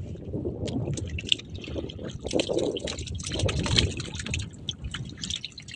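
Water splashing and sloshing around a small wooden outrigger boat, with many small, irregular splashes and taps.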